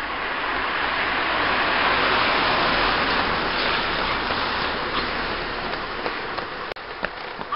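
Cars passing close by on a wet road: the hiss of their tyres on the wet tarmac swells to a peak a couple of seconds in, then fades away.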